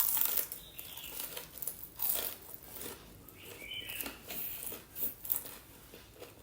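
Close-miked eating: biting into and chewing crispy fried chicken, with irregular loud crunches between softer chewing.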